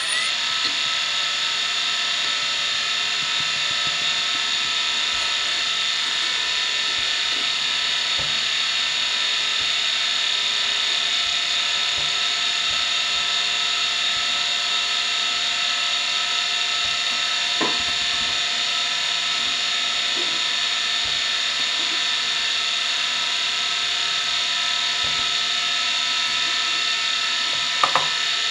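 Seagate ST9235AG 2.5-inch laptop hard drive spinning: a steady high-pitched whine made of several fixed tones, with a faint click about eighteen seconds in and another near the end.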